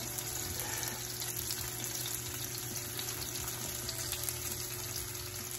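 Breaded menhaden (bunker) fillets frying in hot olive oil in a nonstick pan: a steady sizzle.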